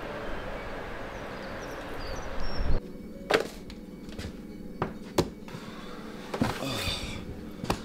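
Steady street background noise that cuts off about three seconds in. After it, in a quiet room, there are a handful of light knocks and clicks, like small objects being handled.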